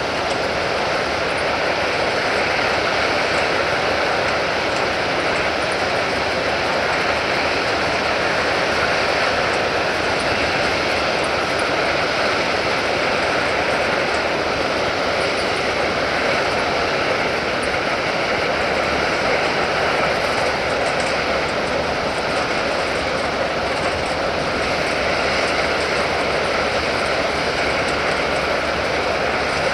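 Steady rushing noise of crushed rock pouring off a conveyor chute into an open hopper wagon, the train of wagons creeping slowly forward under the chute.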